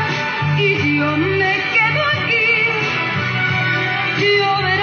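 A woman singing a ballad into a microphone, holding long notes with a wide vibrato, over sustained band accompaniment.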